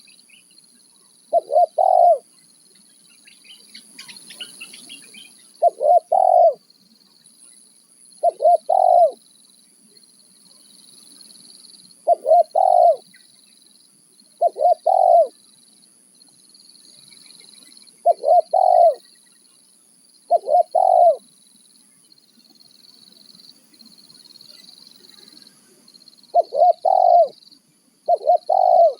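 Spotted dove (tekukur) cooing: about nine short, loud phrases of two or three quick low coos, repeated every few seconds. A steady faint high-pitched hiss runs underneath.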